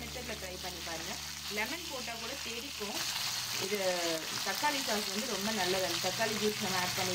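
Masala-marinated koduva (barramundi) fish slices shallow-frying in hot oil in a pan, sizzling steadily. A steady low hum underneath stops about three seconds in.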